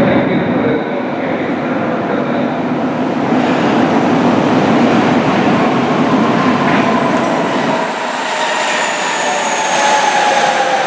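Rubber-tyred metro train running in from the tunnel and into the station, a steady rolling rumble that grows as it nears. From about eight seconds in, a motor whine falls slowly in pitch as the train slows along the platform.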